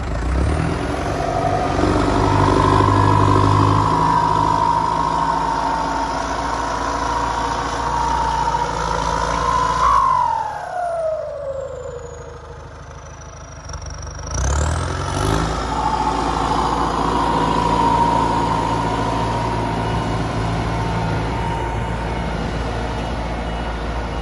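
New Holland Ford 7740 tractor's turbo diesel engine working hard under load, with a steady whine over the engine note. About ten seconds in the engine drops off and the whine slides down in pitch; some four seconds later the engine picks up again and the whine sweeps back up.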